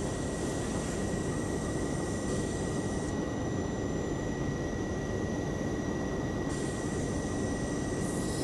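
Steady hum and whir of a Dutch NS electric train standing at the platform with its onboard equipment running, a thin high whine held on top of a low rumble.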